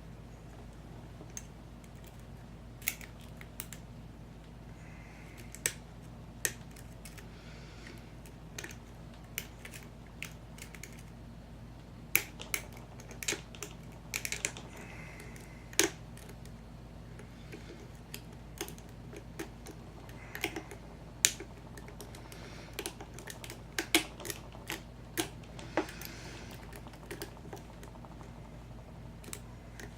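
Irregular sharp metallic clicks and light scraping of a lock pick working the pins inside an American 5100 series padlock cylinder, in an uneven rhythm of single ticks and small clusters.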